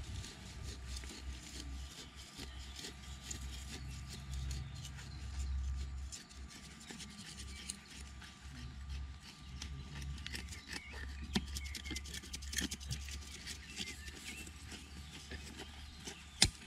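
Knives cutting and scraping through turf and soil with rustling grass, in many short irregular strokes over a low rumble. A single sharp click sounds near the end.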